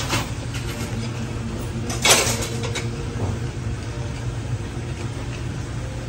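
Steady low hum of shop equipment, with a short burst of clattering knocks about two seconds in.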